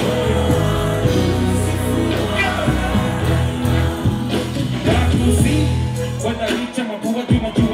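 Live hip hop performance through a concert PA: a rapper's vocals over a heavy bass beat. Near the end the bass drops away for a moment under a few sharp hits.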